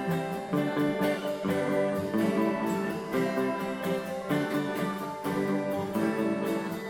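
Background music: strummed acoustic guitar playing steadily with a regular rhythm.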